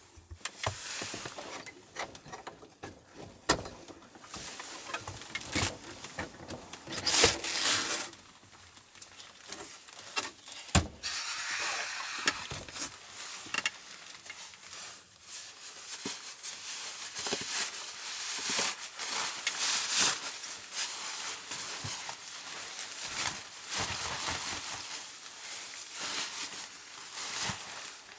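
Handling noises: irregular rustling with light clicks and knocks as things are picked up and moved about, with a louder rustle about seven seconds in.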